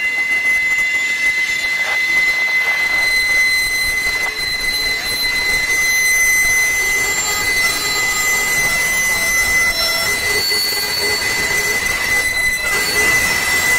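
Freight cars of a mixed freight train rolling past on a curved wye track, their wheel flanges squealing in several steady high-pitched tones.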